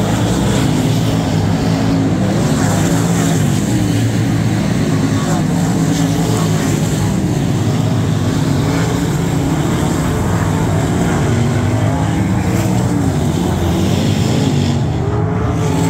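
Several dirt-track race car engines running together through hot laps, their pitches rising and falling as the cars accelerate and lift around the oval.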